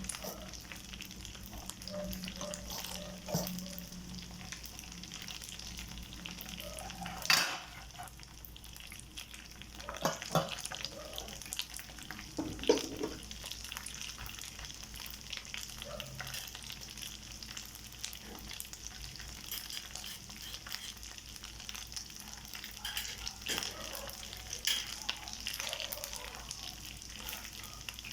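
Fried rice sizzling in a hot pan with a steady crackling hiss, while a spatula stirs it, knocking and scraping against the pan a few times.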